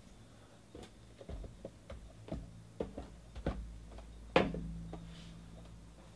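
Cardboard trading-card hobby boxes being handled and shifted on a table: a string of light knocks and taps, with a louder thump about four seconds in as a box is set down.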